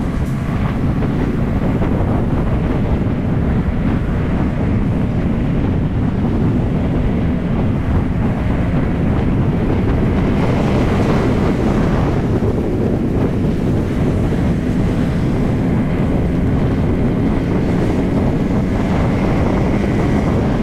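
Wind buffeting the microphone of a motorcycle-mounted camera while riding at road speed, with the motorcycle's engine running steadily under the wind.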